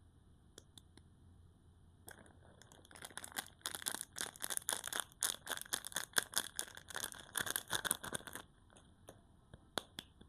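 Soap wrapper being torn open and crinkled by hand: a dense run of crackling that builds about two seconds in, lasts around six seconds and stops suddenly, followed by a couple of single clicks.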